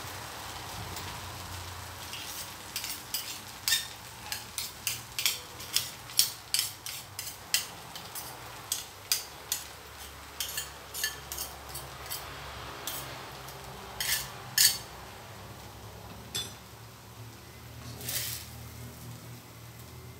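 Metal spatula knocking and scraping against a steel wok while rice-vermicelli noodles are stir-fried, with a faint sizzle underneath. The sharp clanks come a few a second from about two seconds in to about fifteen seconds, and once more near the end.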